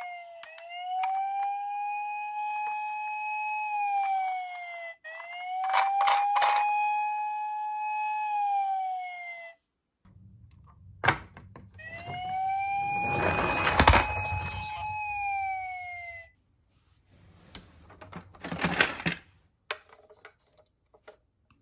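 Toy police car's electronic siren wailing: a tone that rises, holds and falls, repeated three times, with a break in the middle. Sharp clicks and knocks from the toy being handled sound through it and continue after the last wail.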